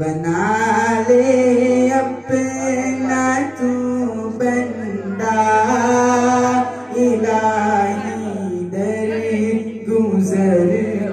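A young man singing solo into a microphone: a slow Islamic devotional chant in Urdu, with long held notes that glide and ornament between pitches.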